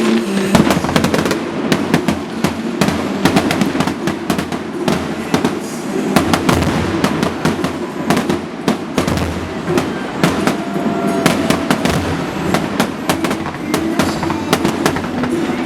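Aerial fireworks going off in a dense, rapid barrage: many bangs and crackles overlapping with hardly a pause.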